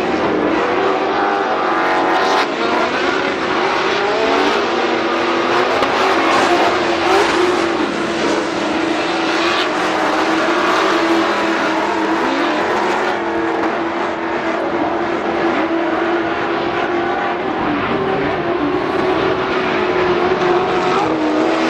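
Engines of several off-road race vehicles running hard around the track. Overlapping engine notes rise and fall as they rev and pass, over a steady wash of noise.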